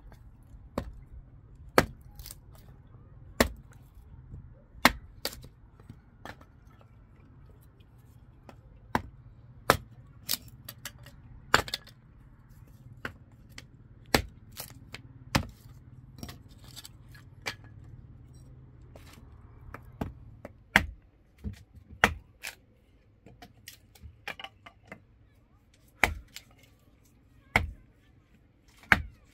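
Hatchet splitting firewood into kindling on a wooden block: sharp wooden chops at uneven intervals, roughly one every second or two.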